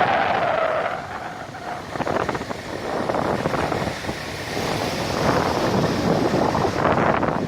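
Steady rushing noise of wind buffeting the microphone, mixed with road traffic and falling water from a waterfall.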